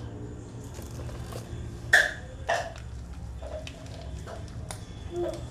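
A person coughing twice, about half a second apart, over a steady low hum, with a few faint handling clicks afterwards.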